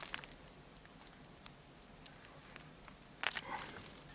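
Handling noise from a hard plastic fishing lure and its clear plastic packaging: a short plastic crinkle at the start and another about three seconds in, with a few light clicks in between.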